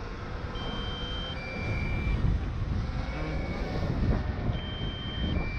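A two-tone electronic alert, a higher beep stepping down to a lower one, sounds twice about four seconds apart: the DJI Mavic Air's low-battery warning as the drone returns home. Wind rumbles on the microphone throughout.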